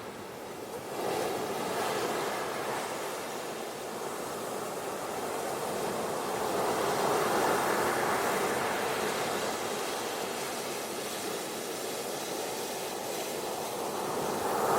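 Ocean surf washing onto a beach: a steady wash of waves that swells and ebbs slowly, building again near the end.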